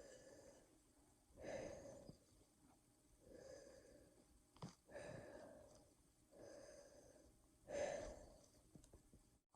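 A person breathing slowly and audibly close to the microphone, about six breaths roughly a second and a half apart. A short click comes about halfway through.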